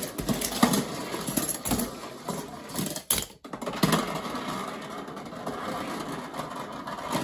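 A dense, continuous rattling clatter made up of many small sharp knocks, with a short break about three seconds in.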